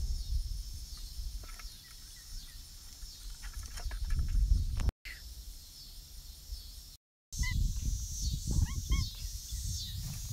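Outdoor yard ambience: high, short chirps repeating throughout over a low rumble on the microphone, broken twice by brief dropouts. A few short pitched animal calls come about three quarters of the way through.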